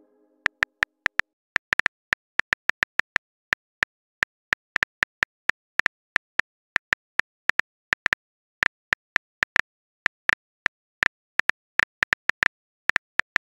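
Phone keyboard click sounds typing out a text message: short, sharp ticks at an uneven typing pace, a few a second, with brief pauses between runs of letters.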